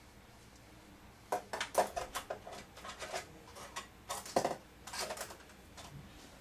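Thin stamped-metal I/O shield clicking and rattling as it is pushed into the rear opening of a PC case: a quick, irregular run of sharp metallic clicks and taps lasting about four seconds, starting a little over a second in.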